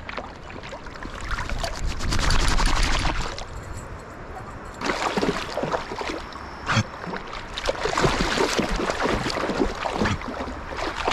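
Shallow river water splashing and sloshing around a dog's legs as she wades, heard close up from a camera strapped to her harness, with a low wind rumble on the microphone. The splashing comes in uneven surges, loudest about two seconds in and again from about five seconds on.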